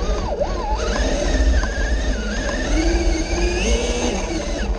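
Axial SCX6 electric RC rock crawler heard from its onboard camera: the motor and drivetrain whine, the pitch rising and falling with the throttle as it crawls, over a steady low rumble.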